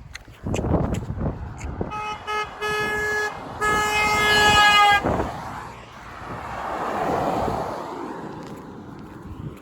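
Vehicle horn honking about two seconds in: a few quick toots, then two longer blasts, the last the loudest at about a second and a half. It is followed by the rushing sound of a vehicle driving past, swelling and fading.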